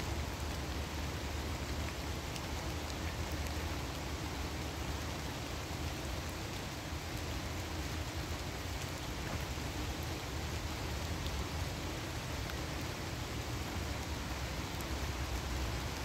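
Steady rain falling through a leafy forest canopy: an even, constant hiss with faint scattered drop ticks.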